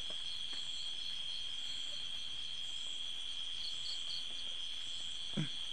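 Night insects, crickets among them, chirring steadily in a high continuous trill, with a faint pulsing above it. One brief falling sound comes near the end.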